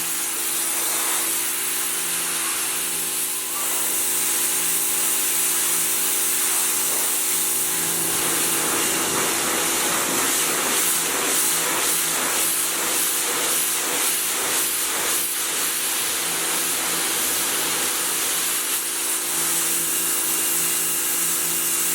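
Electric pressure washer running, its motor humming steadily under the hiss of the water jet spraying a car. For several seconds in the middle the spray noise pulses rhythmically, and it all cuts off suddenly at the end.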